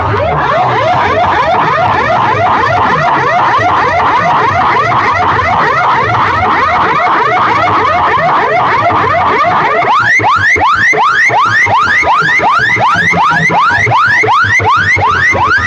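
Electronic siren-like whoop effect played loud through PA horn loudspeakers: rapid rising chirps repeating about three to four times a second over a low beat. The beat drops out about ten seconds in, leaving the clear chirps.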